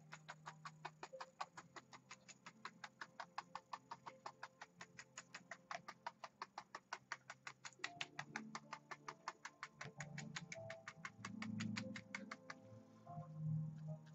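A paintbrush tapped rapidly against an oil-painted canvas, stippling in grass, about five even dry taps a second; the tapping stops near the end.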